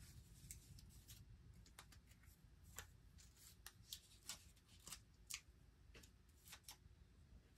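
Faint, irregular small clicks and crinkles of hands handling and pressing down blue painter's masking tape.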